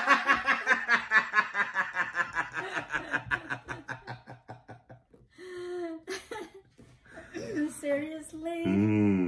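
A man and a woman laughing together in a long run of quick ha-ha pulses that fades out about four seconds in. Short bits of voice follow.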